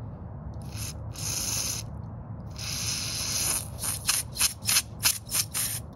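Aerosol carburetor cleaner hissing out of the can as it is sprayed into the needle-valve passage of a leaf blower carburetor: a brief blast, two longer ones, then a rapid series of short squirts near the end.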